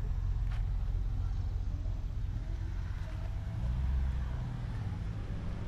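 A vehicle engine running at idle: a steady low rumble that swells briefly about four seconds in.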